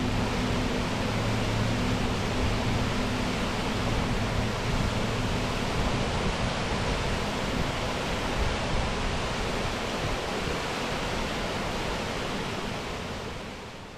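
Eas Fors waterfall: falling water rushing in a steady, even hiss, with a low hum beneath it for the first few seconds. The sound fades away near the end.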